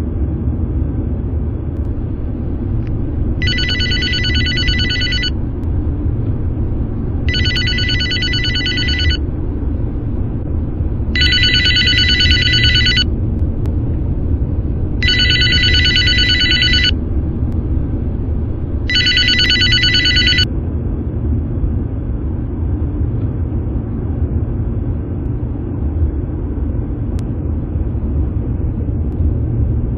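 A telephone ringing five times, each ring about two seconds long and spaced about four seconds apart, and then it stops. Under it is the steady low rumble of a car driving.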